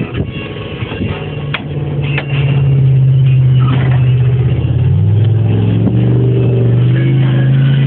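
A vehicle's engine running under way, heard from inside, growing louder about two and a half seconds in, with music playing along with it.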